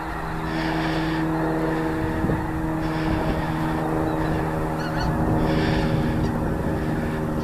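A large flock of snow geese honking and calling all together in a dense, continuous chorus, over a steady low hum and wind noise.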